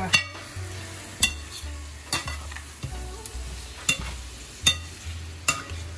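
Metal slotted spatula scraping and clinking against a stainless steel pan while small fish, onions and peppers are stirred, a stroke a little more than once a second, over a steady sizzle of the frying food.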